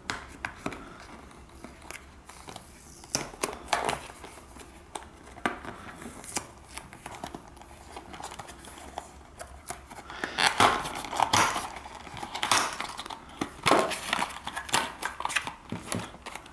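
Product packaging being opened by hand: scattered clicks, scrapes and crinkling, busier and louder in the second half.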